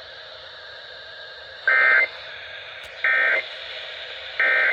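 NOAA Weather Radio broadcast with a steady hiss of static, broken by three short, loud bursts of EAS digital data tones about 1.3 seconds apart: the end-of-message code that closes an alert broadcast.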